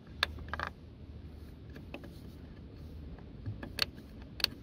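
Screwdriver tip prying at plastic push-clips on a car's plastic engine-bay cover: a handful of separate sharp clicks and scrapes, the loudest two near the end. A faint low hum runs underneath for the first three seconds.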